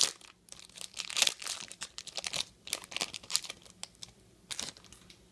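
Trading-card pack wrapper being torn open and crinkled by hand, in irregular crackling bursts that thin out after about three and a half seconds, with one last short crinkle near the end.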